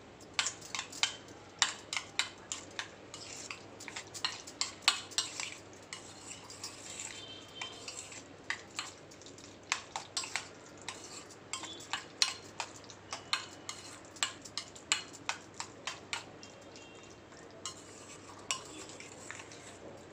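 Metal spoon stirring soaked sago pearls and curd in a stainless steel bowl, with many quick, irregular clinks and scrapes against the bowl. The clinks thin out to a few in the last few seconds.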